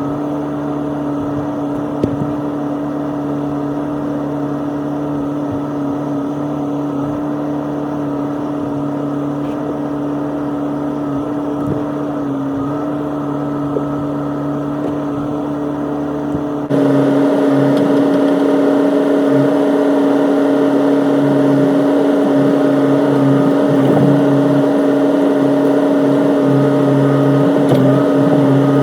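Excavator engine running steadily with an even hum, abruptly louder about seventeen seconds in.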